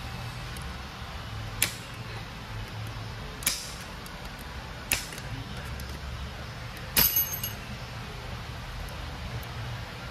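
Metal parts clinking inside a truck transmission's cast case as it is taken apart by hand: four sharp clinks a second or two apart, the last, about seven seconds in, the loudest and ringing briefly with a few smaller clicks after it. A steady low hum runs underneath.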